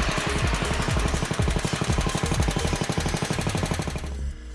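Garden tractor engine running with a rapid, even pulse, driving the snowblower's belt and pulleys. Near the end it gives way to background music.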